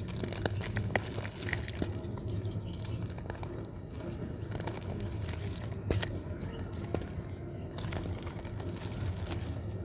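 Dried white dirt slab crumbling in the hands, giving scattered crisp crackles and small snaps.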